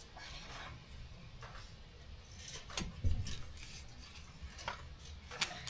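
Faint scattered clicks and knocks of metal jack stands being handled and set under the car, with a dull thump about three seconds in, over a low steady hum.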